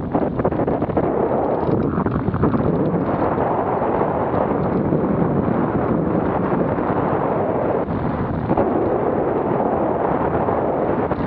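Wind from the airflow of a hang glider in flight buffeting a wing-mounted camera's microphone: a loud, steady rush with slight gusty swells.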